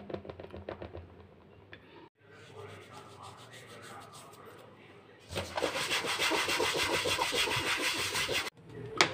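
Hands working chapati dough in an aluminium bowl with dry flour: quick light patting strokes, then a few seconds of fast, rough rubbing as the dough balls are rolled in the flour, the loudest part. It stops abruptly near the end.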